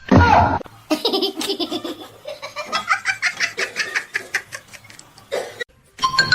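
A person laughing hard in rapid repeated bursts, after a short loud sound at the very start. The laughter stops briefly near the end.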